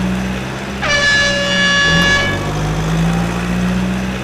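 A truck horn sounds one blast of about a second and a half, its pitch rising slightly at the start. It plays over a steady low engine-like drone.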